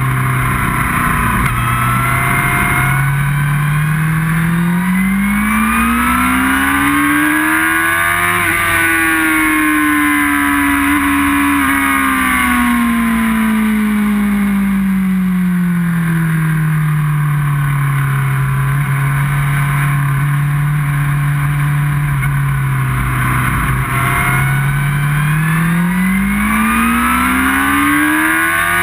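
Onboard sound of a sports bike's inline-four engine at speed on track: the revs climb for several seconds, ease back, hold steady for a while, then climb again near the end, with constant wind hiss over the camera.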